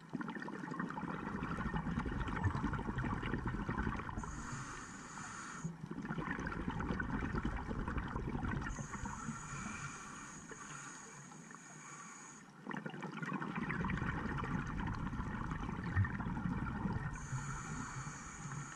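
Scuba diver breathing through a regulator underwater. Three long gurgling rushes of exhaled bubbles alternate with shorter quieter spells in which a steady high hiss comes through.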